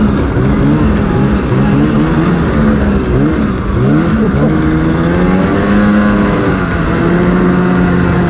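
Snowmobile engines running, their pitch rising and falling with the throttle for the first few seconds, then settling into a steady, even pitch from about four and a half seconds in.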